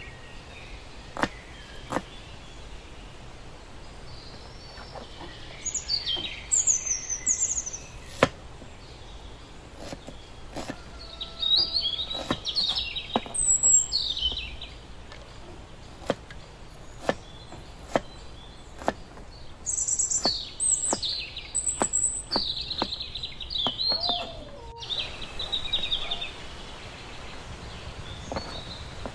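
A cleaver chops onions on a wooden cutting board, making single knocks at irregular intervals. Birds chirp on and off in the background.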